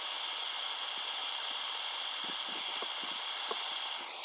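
Small handheld torch flame hissing steadily as it heats a solar-cable splice to flow solder, the wire being too thick for the soldering iron. The hiss cuts off near the end.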